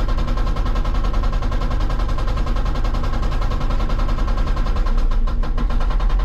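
Hydraulic rock breaker on a Hitachi 160 excavator hammering solid rock in a fast, continuous string of blows over the running engine. The point is grinding the rock to powder rather than cracking it.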